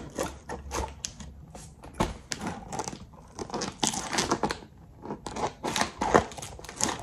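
Scissors blade slitting clear packing tape along the seam of a cardboard box: a run of irregular scraping and tearing strokes, some louder than others.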